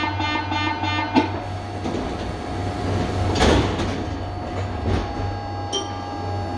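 Sliding passenger doors of a Lyon metro line B car closing: a pulsing warning tone stops about a second in, then the doors slide shut and meet with a loud thump about three and a half seconds in. A steady low electrical hum from the stationary train runs underneath.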